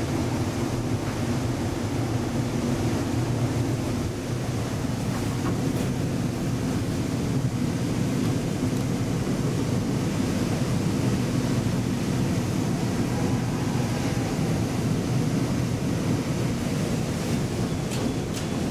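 KONE inclined elevator cab travelling down its inclined track, a steady low rumble of the car in motion heard from inside the cab. A couple of faint clicks near the end.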